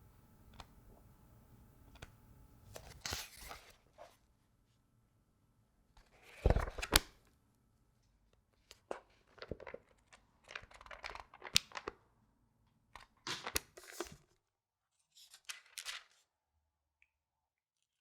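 Book pages being turned and handled, with six or so separate crisp paper rustles and quiet gaps between them. The loudest comes about six and a half seconds in.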